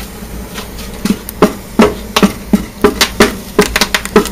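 Split firewood knocking and clattering as pieces are loaded into the fuel tube of a wood gasifier boiler: a run of sharp wooden knocks, about three a second, starting about a second in.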